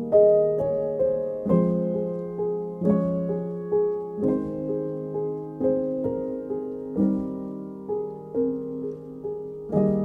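Background music: a slow piano piece, with notes and chords struck every second or so and left to ring out.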